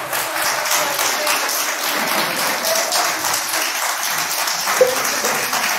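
An audience applauding, many hands clapping together in a steady dense wash; a short voice or shout cuts through about five seconds in.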